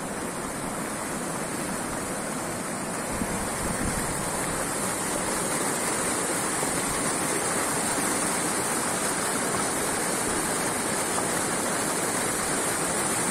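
Fast river current rushing and churning white as it pours over a concrete edge, the river running high after rains. The rush grows louder about three to four seconds in.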